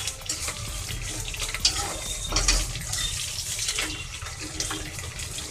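Sliced onions and green chillies sizzling in hot oil in an aluminium pressure cooker, stirred with a spatula that scrapes now and then against the pot.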